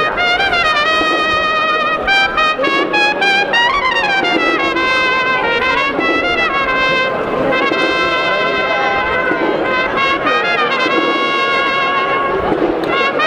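Agrupación musical, a Spanish Holy Week brass band, playing a processional march. Trumpets and trombones carry a continuous melody.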